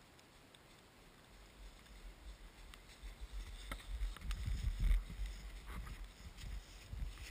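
Footsteps crunching in snow right beside a ground-level microphone, with low thuds. They start about two seconds in, are loudest around five seconds, and then fade.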